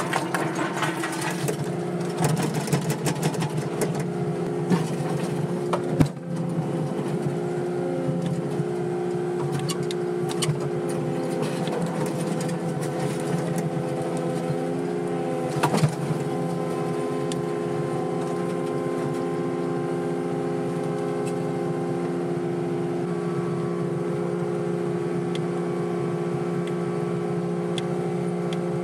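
Excavator's diesel engine running steadily. There is a sharp clank about six seconds in and another around sixteen seconds.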